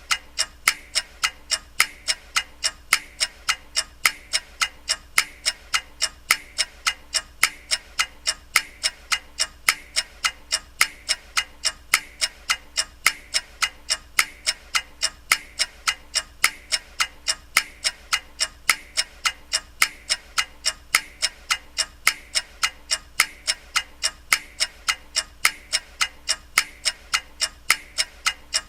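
Clock ticking in an even, unbroken rhythm of sharp ticks, roughly two a second.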